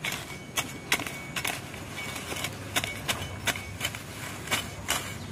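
Hand sickle cutting grass and weeds in a run of short, crisp strokes, about two to three a second.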